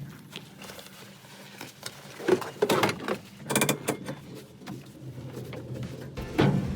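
Volvo 164's B30 straight-six engine running with a low steady hum, broken by a few sharp clunks about two, three and a half and six and a half seconds in.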